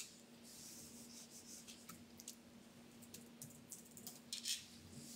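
Faint typing on a MacBook laptop keyboard: scattered, irregular key clicks over a steady low hum.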